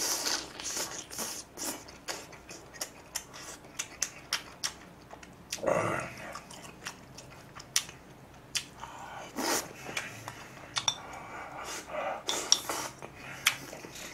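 Eating sounds: a metal spoon clicking and scraping on a plate and pot, with chewing between the clinks.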